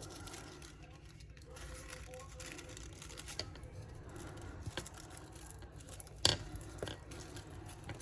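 Small handling noises of paper craft work on a tabletop: scattered light clicks and taps, with one sharp click about six seconds in, over a steady low room hum.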